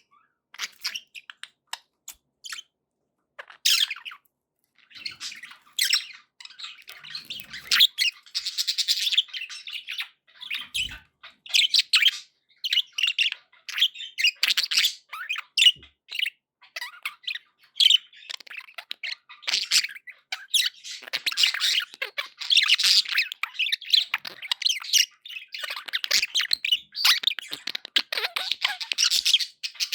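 Budgies (budgerigars) chirping, warbling and squawking in busy chatter. It starts as a few scattered chirps and thickens into near-continuous chatter after about five seconds.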